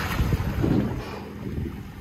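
Water splashing as a hooked yellowfin tuna thrashes at the surface beside the boat while it is gaffed, with wind buffeting the microphone. The splashing is loudest at first and eases after about a second.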